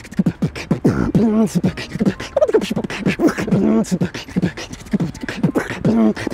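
A man beatboxing: quick percussive mouth clicks and hits woven with a hummed vocal line that wavers in pitch.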